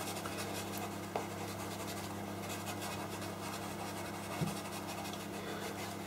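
Pastel pencil scratching across textured pastel paper in repeated short shading strokes, with a steady low hum underneath.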